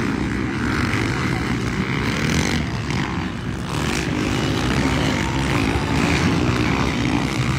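Motocross bike engines running as riders race around the dirt track, a continuous engine drone of several bikes at once.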